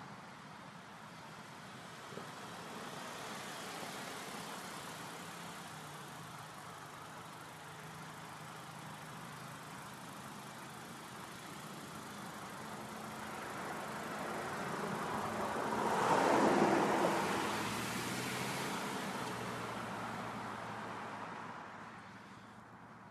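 A car driving past: tyre and engine noise swells gradually to a peak about two-thirds of the way through, then fades away. A quieter swell of passing traffic comes earlier.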